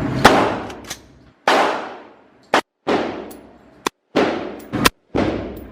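Gunfire: five loud shots about a second apart, each trailing off in a long echo, with three shorter, sharp cracks falling between them.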